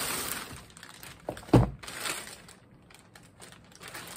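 Plastic poly mailer bag crinkling and rustling as it is handled and opened, with one sharp thud about one and a half seconds in.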